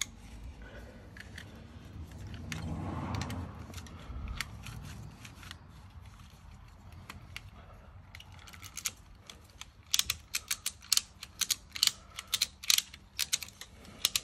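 Retractable steel ratchet strap being handled, then its ratchet clicking sharply and regularly, about three clicks a second, from about two-thirds of the way through.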